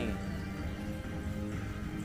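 Background music with sustained, steady notes.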